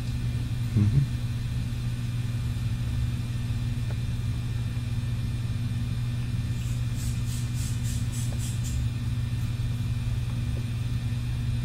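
Scissors snipping through a thick lock of long hair: a quick run of about ten crisp snips lasting about two seconds, some seven seconds in. Under it a steady low hum, with a single thump about a second in.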